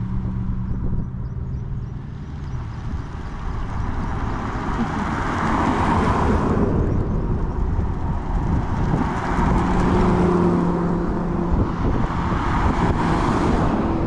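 Cars driving along the road past the microphone: an engine note fades away at the start, then engine and tyre noise swell around six seconds in and again from about ten seconds on as more cars come by.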